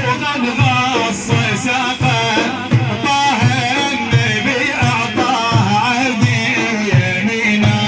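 Middle Eastern music for a religious praise song: a deep drum beat about every 0.7 seconds under a wavering, ornamented melody.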